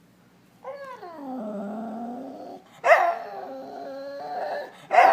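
Dog crying for attention. A long whine slides down in pitch and holds for about two seconds, then two louder, sharper cries follow about two seconds apart.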